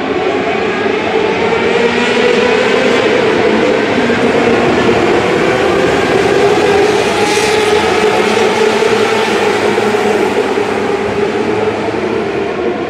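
A pack of small open-wheel dirt-track race cars running at high revs around the track, many engines at once in a steady, loud drone, inside a covered arena.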